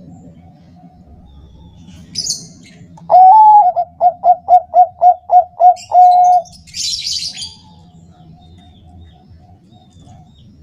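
Bangkok-type zebra dove (perkutut) singing its cooing song: one long opening coo, then a quick run of about eight short coos, ending on a held note. Brief high chirps come just before and just after it, over a faint steady background of softer coos.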